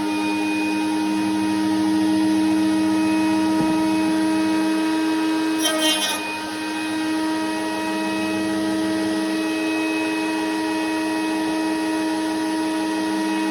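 Handheld electric router running at steady speed, a constant motor whine, while routing a 6 mm roundover on a wood edge. A brief higher, rasping burst comes about six seconds in, and the level dips slightly after it.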